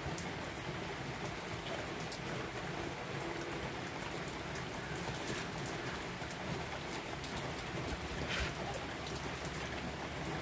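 Steady rain falling, with scattered sharp clicks and crunches from goats biting and chewing dried corn kernels off the cob.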